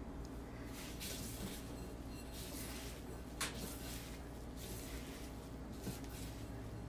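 Faint soft squishing of raw minced beef for kitfo being mixed with spiced butter, over a steady low room hum, with a small click about three and a half seconds in.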